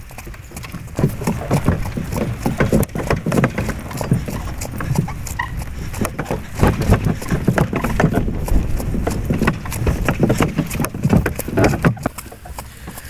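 Draft horse's hooves clip-clopping at a walk on a snow-covered road, mixed with irregular rattling and knocking from the cart's shafts, chains and harness. The clatter grows louder about a second in and eases near the end.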